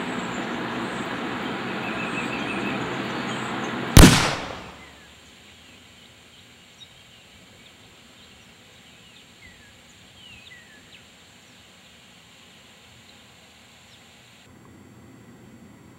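A single very loud shotgun blast about four seconds in, cutting off a steady background noise and dying away in under a second. Afterwards there are only a few faint, short falling bird chirps.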